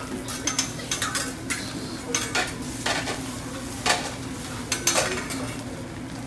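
A ceramic soup spoon stirring in a ceramic bowl of soup, clinking and scraping against the bowl about ten times, over a steady low hum.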